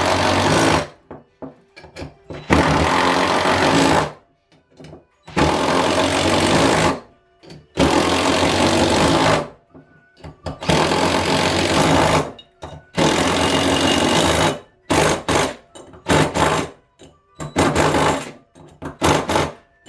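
Power driver running in repeated bursts of a second or two, forming 5/16 threads in the back-cap bolt holes of a new Leslie RS power chamber nozzle housing, then shorter, quicker bursts near the end as the threads are finished.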